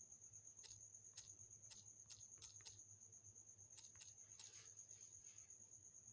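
Near silence: a faint, steady high-pitched whine and a low hum, with about a dozen faint scattered clicks.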